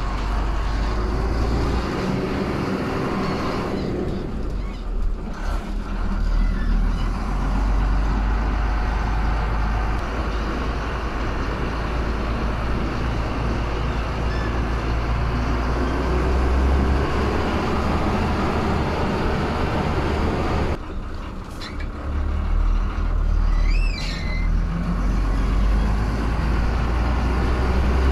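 Ashok Leyland bus's diesel engine running under way with road noise, heard from inside the driver's cab. The engine sound drops off briefly twice, and a short high squeak comes about three-quarters of the way through.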